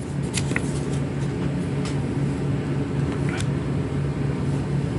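A steady low mechanical hum, with about four light clicks from a plastic magnetic card holder being handled.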